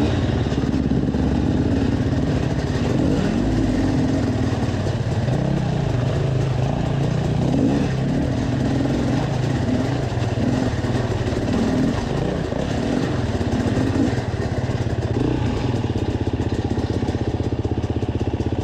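Enduro dirt bike engines running continuously, their pitch rising and falling as the throttle is worked over rough ground.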